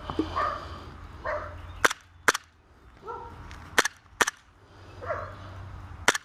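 Airsoft pistol, a replica H&K USP Compact, firing five sharp shots, mostly in pairs about half a second apart.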